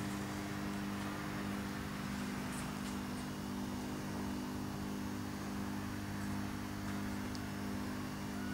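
A steady low hum made of several held tones, over a faint even hiss, from some running machine.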